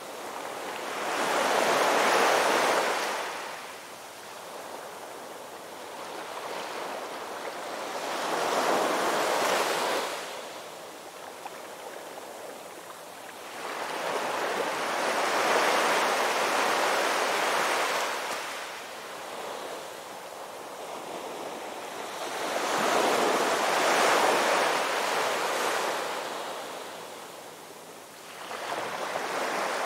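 Ocean surf breaking on a beach: four slow surges that build, crash and wash back, about every seven seconds, with the next one building near the end.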